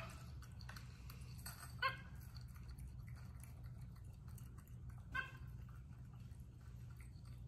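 A pet monkey's short squeaky calls, twice, about two and five seconds in, over a steady low hum.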